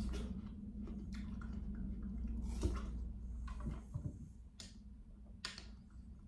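Biting into and chewing juicy watermelon: wet, crunchy squishing of the flesh and juice, in short bursts several times. A low steady hum sits underneath and drops away about four seconds in.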